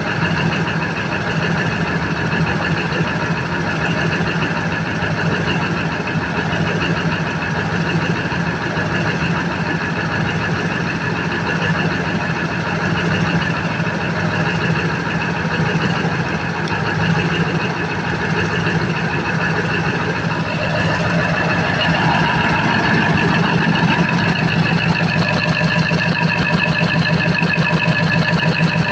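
Cummins KTA50 V16 diesel engine idling steadily on a test run after a general overhaul, with an even, fast firing rhythm. It grows a little louder about twenty seconds in.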